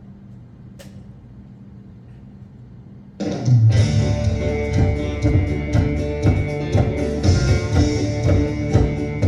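Soft sustained chords, then about three seconds in a band abruptly starts an upbeat country-gospel intro: strummed guitar over bass with a steady beat, no singing yet.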